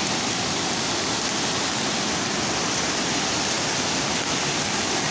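Steady rushing of a river in flood, its muddy water churning and surging against concrete steps.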